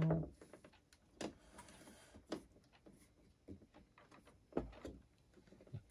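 Screwdriver turning a screw into the metal case of a Sansui T60 tuner: a few light, scattered clicks and taps of the tool and screw against the metal, roughly one a second.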